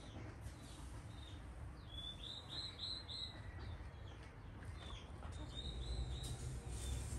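Small birds chirping: a quick run of about five short high chirps, then another short run a few seconds later, over low steady background noise.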